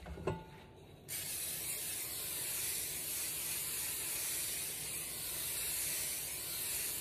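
Aerosol cooking-oil spray hissing steadily onto a skillet for about six seconds, starting about a second in. A brief knock comes just before it.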